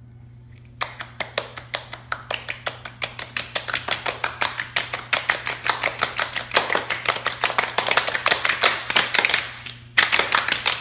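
A rapid, even run of sharp taps or claps, several a second, starting about a second in and pausing briefly near the end, over a steady low hum.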